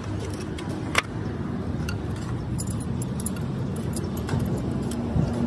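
Metal hand tools and axle parts clinking and clattering as they are handled, with one sharper clank about a second in and a run of light clinks a little later, over a steady low rumble.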